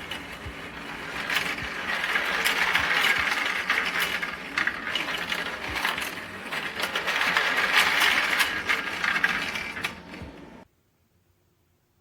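Sovol 3D printer running a print: its stepper motors and moving print head make a busy mechanical whirr with many small clicks, swelling louder twice. It cuts off suddenly near the end.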